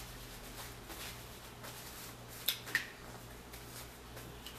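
Close-miked eating sounds of a person chewing seafood, with faint wet mouth clicks and two sharp smacks close together about halfway through, over a steady low hum.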